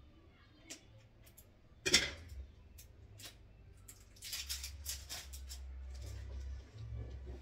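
Scissors snipping off camera: a quick run of short crisp cuts, with a single knock a couple of seconds before them, over a low steady hum.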